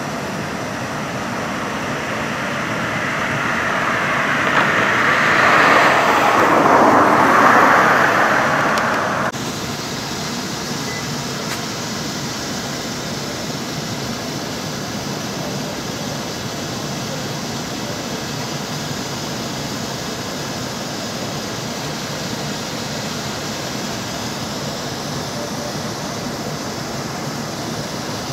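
Steady outdoor traffic noise. A vehicle's passing rush swells louder over several seconds and then cuts off abruptly about nine seconds in, at an edit.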